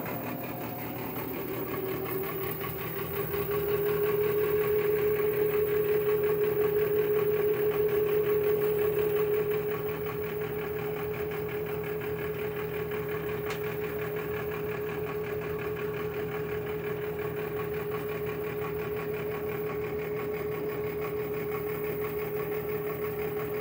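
An LG washer-dryer combo with its top panel off running its cycle: a steady motor whine over a low hum, a little louder for a few seconds early on and then even.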